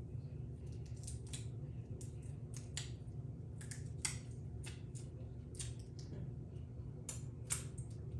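Eating sounds from a seafood boil: a dozen or so short, irregular clicks, smacks and cracks of a person eating, over a steady low hum.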